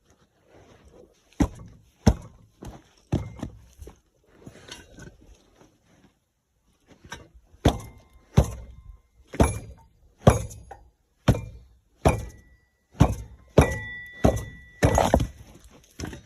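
Repeated heavy knocks with an uneven pace, a handful and then after a pause a faster run of about a dozen, several with a short metallic ring: something is being struck to knock it free from under a skid steer where rocks are pinning it.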